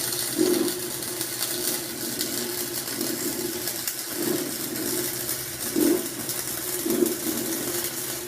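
Flux-core wire-feed welder running a continuous weld on steel pipe: a steady crackling sizzle of the arc over a low hum, swelling briefly a few times.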